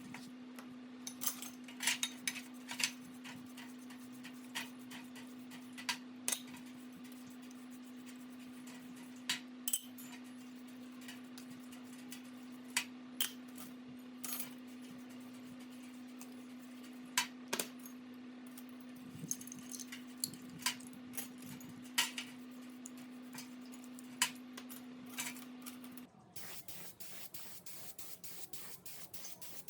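Light metallic clicks and clinks, as of small metal parts being handled and set down, scattered irregularly over a steady low hum. About 26 s in the hum stops and an even hiss with rapid fine ticking takes over.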